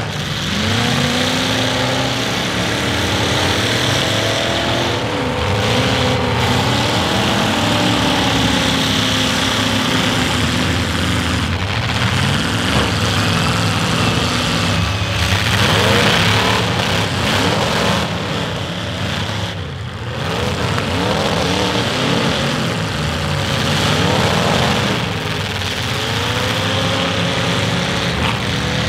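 Several demolition derby stock cars' engines running hard at once, revving up and dropping back over and over as the cars accelerate, back up and push against each other in the mud.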